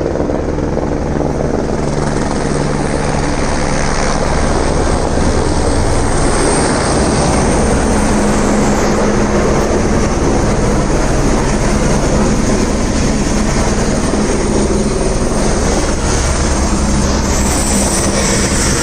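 Helicopter running steadily, its rotor and engine making a loud, even drone.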